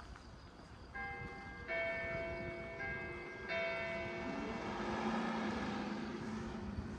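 Church bells striking four times within a few seconds, each stroke ringing on and overlapping the next, with the strokes alternating in pitch.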